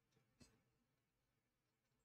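Near silence, with one faint tap about half a second in from a diamond-painting pen on the drill tray or sticker sheet.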